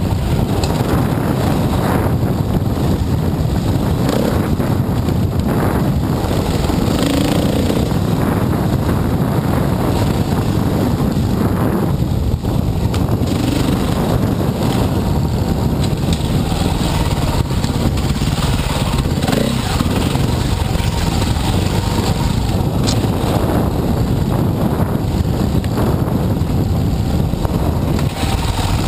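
Dirt bike engine running steadily under way, heard close up from the rider's helmet.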